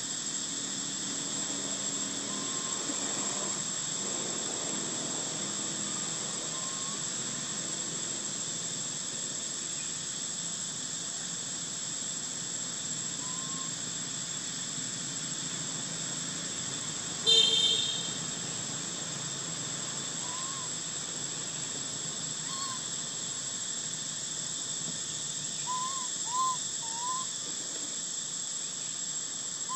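Steady high-pitched drone of forest insects, with short rising whistled calls scattered through it and three in quick succession near the end. About 17 seconds in, one brief, loud call stands out above the drone.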